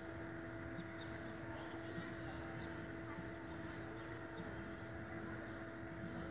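A steady mechanical hum with a constant tone over a low rumble.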